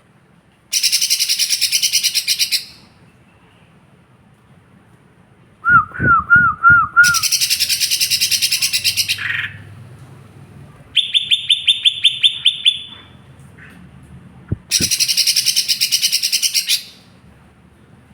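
Cucak ijo mini (a small green leafbird) singing in loud bursts of about two seconds: fast, dense buzzy trills, with a run of five looping whistled notes about six seconds in and a quick series of a dozen sharp chips about eleven seconds in.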